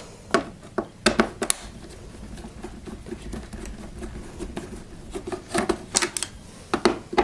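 Torx screwdriver undoing screws in a vacuum cleaner's casing: a few sharp clicks and taps of the tool and screws, a cluster about a second in and another near the end.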